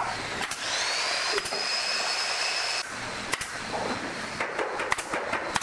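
Pneumatic brad nailer driving nails into pallet wood: a string of sharp shots, coming faster near the end. For about two seconds near the start there is also a high, steady hiss of compressed air.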